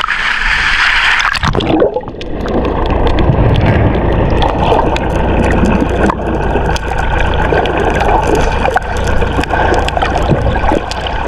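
Water sloshing and gurgling, with a steady low rumble underneath and scattered small knocks; the sound changes character about two seconds in.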